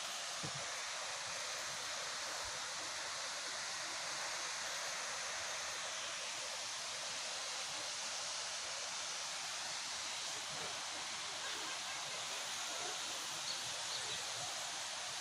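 Steady rushing of a waterfall: an even, unbroken hiss.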